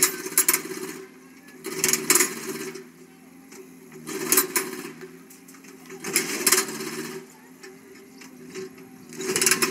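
A motor runs steadily. About every two seconds a burst of rapid clattering comes in, lasting under a second each time, and the bursts are the loudest thing heard.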